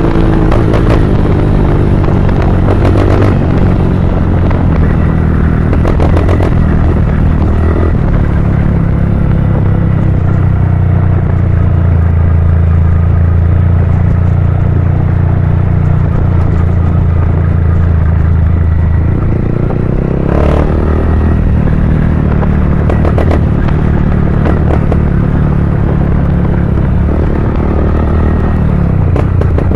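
Honda CG 160 Cargo motorcycle's single-cylinder four-stroke engine running steadily through an aftermarket Pro Tork Competition exhaust, a loud, deep rumble. Its note changes briefly about twenty seconds in, then settles back.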